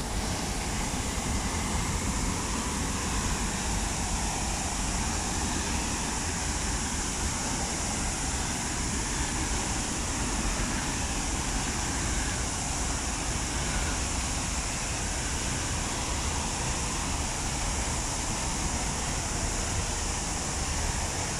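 Okere Falls on the Kaituna River: a steady, unbroken rush of white water.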